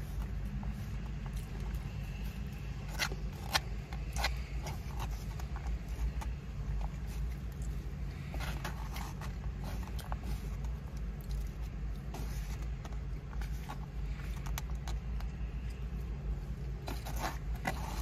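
Plastic fork scraping and clicking against a foam takeout container, with the sounds of eating, over the steady low hum of a car cabin. Sharp clicks come in clusters, a few seconds in, again around the middle, and near the end.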